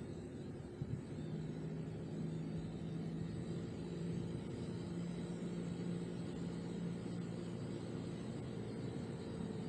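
Car driving at a steady pace: an even engine hum over road and tyre noise, with two short knocks about a second in.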